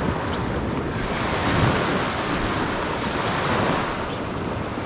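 Small surf waves washing onto a sandy beach, with steady wind noise on the microphone.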